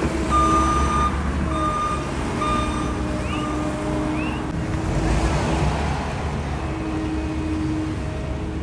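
Heavy construction machine's backup alarm beeping three times over its diesel engine running steadily, the sign that the machine is reversing. A couple of short high squeaks follow the beeps.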